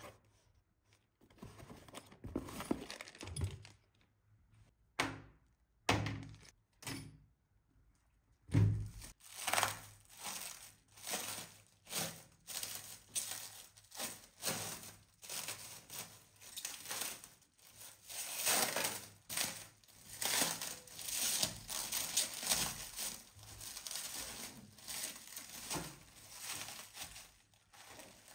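Handling noise: a few scattered thunks and knocks, then from about nine seconds in a long, dense run of quick crinkling and tearing noises, several a second.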